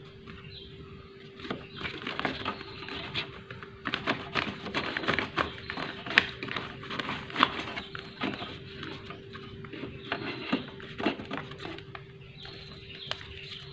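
Paper rustling and scraping against the plastic parts of an open inkjet printer as a folded, pointed sheet is pushed down through the paper path to clear dust and grit from the feed roller: irregular small clicks and scratches over a steady faint hum.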